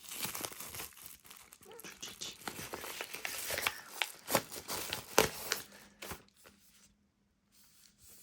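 Parcel packing material being handled and crumpled by hand: a dense crackle of crinkles and small clicks that dies away about six seconds in.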